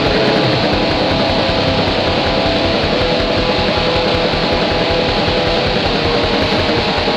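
Raw lo-fi black metal: a dense wall of distorted electric guitar over fast, steady drumming. The recording sounds muffled, with little top end.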